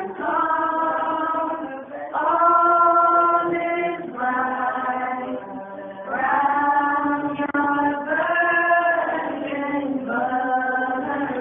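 A group of carolers, mostly women's voices, singing a Christmas carol together without instruments, in long held notes phrase by phrase.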